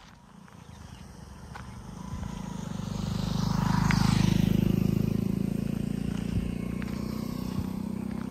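A motor vehicle passing by: a low engine hum with tyre hiss that grows louder to a peak about four seconds in, then slowly fades.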